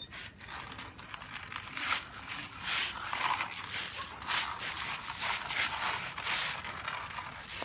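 Plastic toy dump trucks loaded with sand being pushed over sandy ground: a gritty scraping and crunching of wheels and grit, in irregular strokes.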